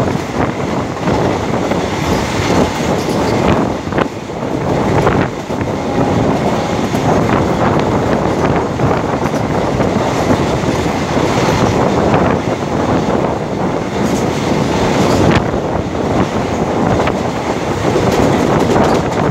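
Passenger train running along the line, heard from an open carriage window: a steady loud rush and rumble of wheels on rails and moving air, with an occasional sharp knock from the track.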